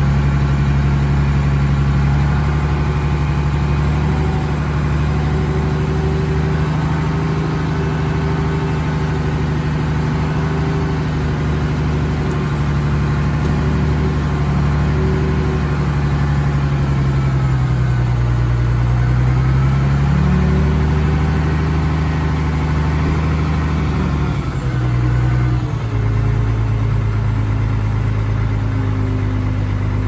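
Heavy diesel engine of earthmoving machinery running steadily under varying load. Its pitch dips and comes back up about two-thirds through, then shifts again near the end.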